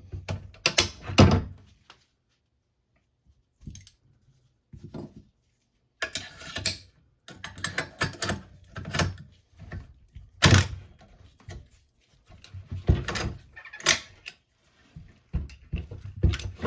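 AR-15 rifle parts being put back together by hand: irregular metal clicks, knocks and short sliding scrapes, with a quiet pause of a few seconds early on.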